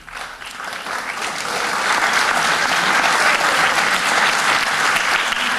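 Audience applauding, swelling over the first two seconds and then holding steady.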